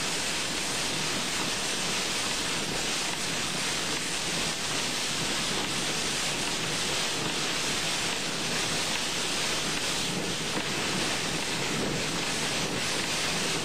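Heavy wind-driven rain pounding steadily on a car, heard from inside the cabin as it drives through a severe thunderstorm's very high winds.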